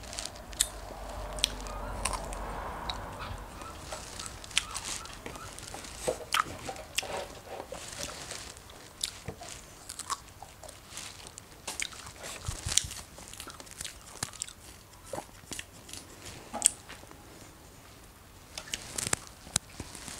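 A person biting into and chewing fresh strawberries, with many short, sharp mouth clicks scattered throughout.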